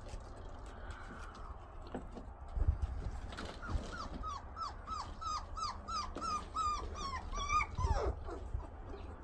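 Black Labrador puppy whimpering: a run of about a dozen short high whines, each falling in pitch, about three a second, with a few dull thumps around it.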